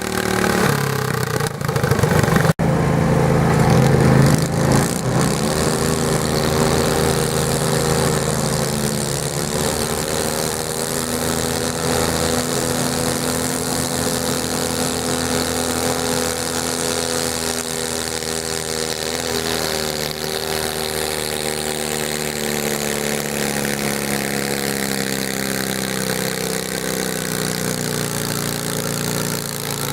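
Garden tractor engine running hard under load, most likely pulling the weight sled: louder for the first few seconds, then a steady drone to the end.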